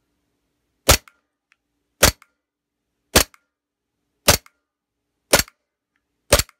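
WE Tech G19 gas-blowback airsoft pistol firing six single shots, about one a second, each a sharp crack as the slide cycles, with a faint click a moment after each.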